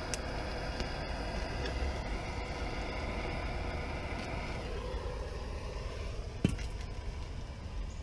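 Handheld propane torch hissing steadily as its flame is held to kindling in a small wood stove, the hiss dropping away a little past halfway. A single sharp knock sounds near the end.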